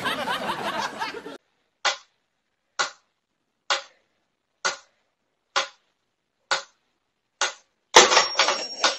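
A mechanical pyramid metronome ticking steadily, a sharp click about once a second, seven ticks in all. It starts after a short noisy stretch at the beginning. Near the end a louder jumble of sound with a thin high tone takes over.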